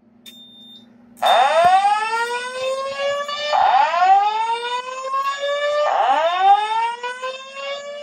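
Fire alarm voice evacuation system sounding the Simplex-style slow whoop evacuation tone after a manual pull station is pulled: loud rising sweeps, each about two and a half seconds long, three in a row starting about a second in and a fourth beginning at the end. A brief high beep comes just before, and a faint steady hum runs underneath.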